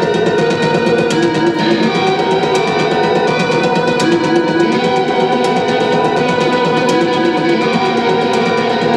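Electric guitar played live as a loud, continuous, dense wash: several held notes ring together over fast repeated picking.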